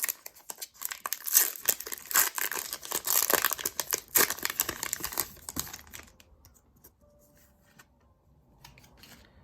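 Foil wrapper of a Pokémon Cosmic Eclipse booster pack being torn open and crinkled, stopping about six seconds in.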